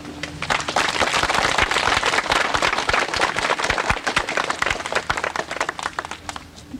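Audience applauding. The clapping breaks out about half a second in, stays thick, then thins to scattered claps and dies away near the end.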